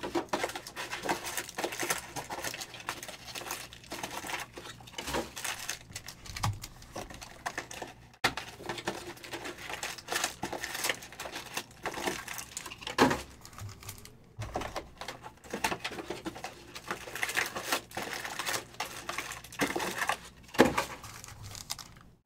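Foil-wrapped Donruss Optic trading-card packs crinkling and rustling as they are handled, pulled from their cardboard hobby box and stacked, with a few sharper knocks.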